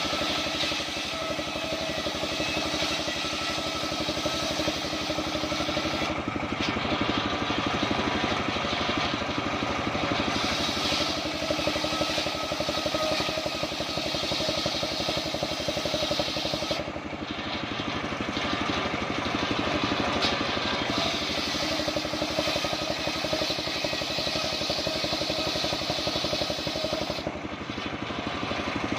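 Engine-driven homemade circular saw rig running steadily while sawing mindi wood. Its sound shifts in character every few seconds.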